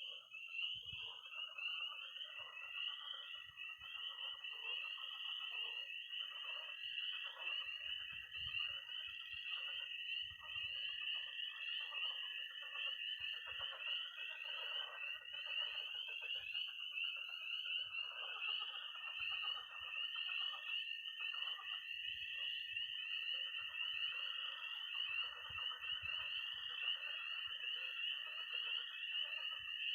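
Early-spring night chorus of frogs and toads: spring peepers peeping without a break in a dense high band, toads holding long high trills (one from about two seconds in until about sixteen, another from about eighteen seconds on), and pond frogs croaking lower underneath.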